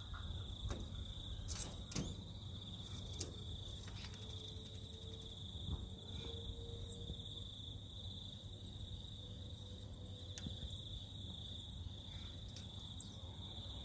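Insects trilling steadily at one high pitch, with a few faint clicks scattered through.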